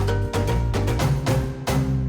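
Background music with a steady percussive beat over sustained bass and chords; the drums stop near the end, leaving a held chord.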